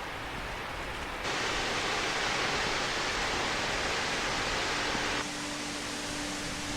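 Steady rushing of creek water. It jumps louder and brighter about a second in and drops back abruptly about five seconds in.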